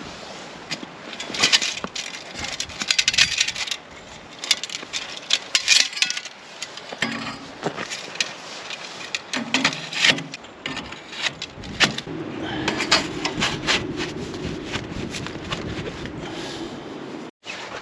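Clinking, rattling and scraping of objects being handled, in quick irregular clatters. About twelve seconds in a steady low hum starts under them, and it cuts off suddenly near the end.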